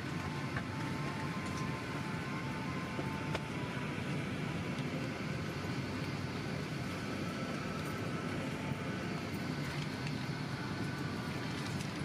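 Steady cabin noise of a Boeing 737-800 in flight, heard from a passenger seat: an even, low drone of airflow and its CFM56-7B engines.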